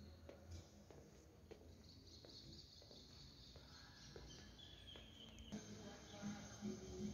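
Near silence: faint room tone, with a few faint high chirping tones in the middle.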